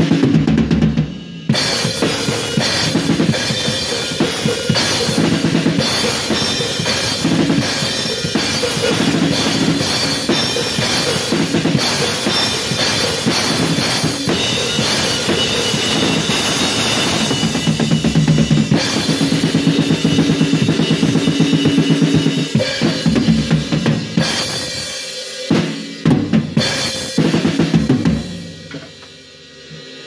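Acoustic drum kit played hard and continuously: kick drum, snare and tom hits under crashing new Zildjian cymbals. The playing breaks off briefly just after the start, turns to scattered accents near the end, and stops about two seconds before the end, leaving the cymbals ringing out.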